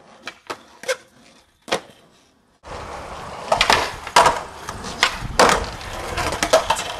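Skateboard wheels rolling over concrete, with sharp clacks of the board striking and landing on a concrete ledge. There are a few sparse clicks at first, then the rolling noise comes in suddenly louder about two and a half seconds in, with several hard clacks over it.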